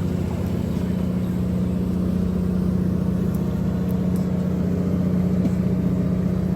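A fishing boat's diesel engine running steadily: an even, low hum with a fast, regular pulse that does not change.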